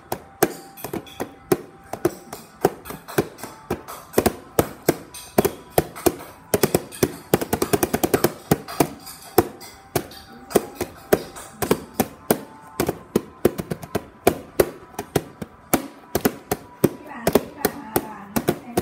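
Hands drumming on a gift-wrapped box, fingers and palms tapping and slapping its top in an uneven rhythm of sharp hits, a few a second, with quicker flurries in the middle.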